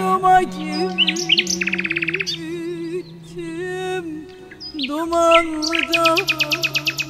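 Instrumental background music: held low bass notes that step down in pitch under a slow wavering melody. Birds chirp and trill over it in fast rapid bursts, about two seconds in and again near the end.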